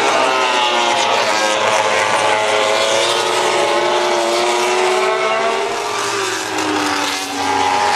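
MotoGP racing motorcycle engine revving high, its pitch falling and climbing again as the bike goes through corners.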